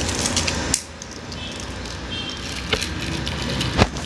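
Crinkling and clicking of a small plastic packet of 6 mm airsoft BB pellets being torn open and handled by fingers: dense crackling for under a second, then quieter rustling with a few sharp clicks, the loudest near the end.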